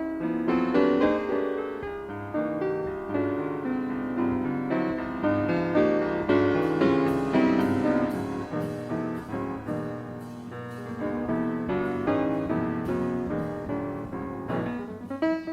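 Live jazz-fusion band music played back from cassette tape, with keyboard notes to the fore.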